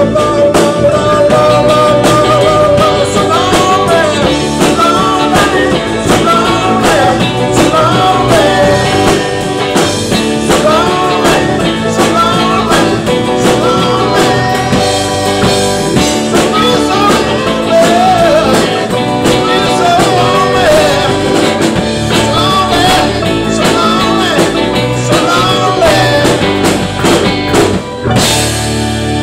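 Live rock band playing loudly: a man singing over electric guitars, a drum kit and keyboard.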